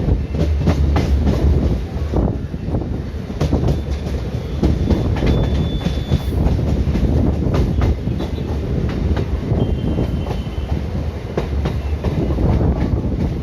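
Indian Railways ICF train running along the track: a steady low rumble with the clickety-clack of wheels over rail joints. A brief faint high whine comes about five seconds in and again near ten seconds.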